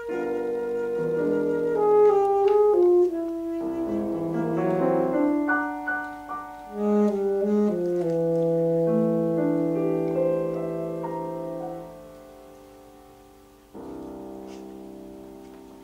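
Saxophone and piano playing a classical sonata together, the saxophone line moving over piano chords. The music fades about twelve seconds in, then a single piano chord is struck and left ringing.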